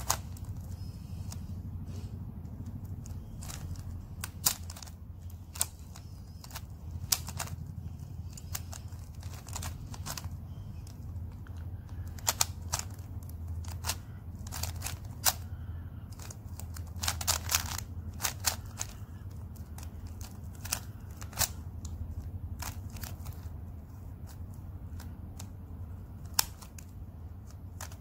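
Plastic puzzle cube being twisted by hand: sharp, irregular clicks and clacks as the layers turn and snap into place, with a short quick run of clicks about two thirds of the way through, over a steady low hum.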